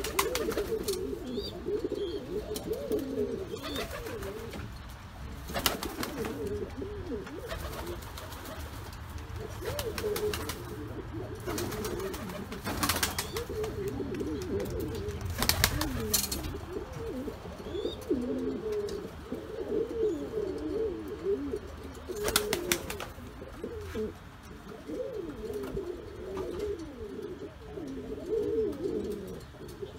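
Domestic buchona pouter pigeons cooing almost without a break, a low warbling coo. A few short sharp knocks break in now and then.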